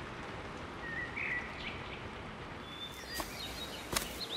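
Woodland ambience: a steady background hush with a few short bird chirps and whistles, and one sharp click near the end.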